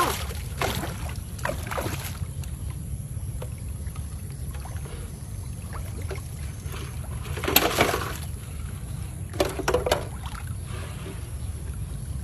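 Water splashing in a few short bursts, at the start, about eight seconds in and about ten seconds in, over a steady low rumble.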